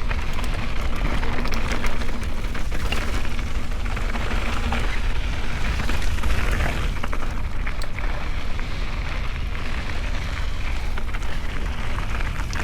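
Mountain bike descending a dirt trail: tyres crunching over gravel and rock, with scattered rattling clicks from the bike and wind rumbling on the microphone.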